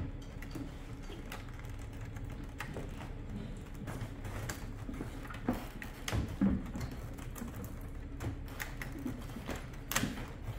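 Scattered small clicks and knocks of plastic wire connectors being unplugged from a ceiling cassette air conditioner's control board, over a steady low hum.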